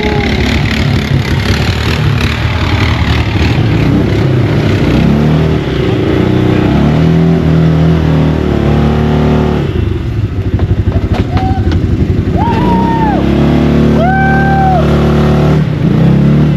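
ATV engines revving, the pitch climbing and dropping several times, then held at high revs through the second half.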